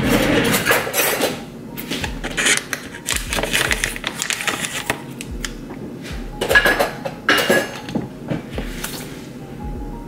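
Kitchen clatter: dishes and utensils knocking and clinking, in irregular clicks and knocks, with a couple of louder ones about two-thirds of the way through.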